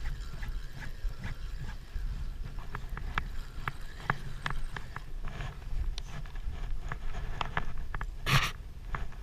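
Low wind rumble on the microphone with scattered small clicks and taps of handling. One short, sharp scrape-like noise about eight seconds in.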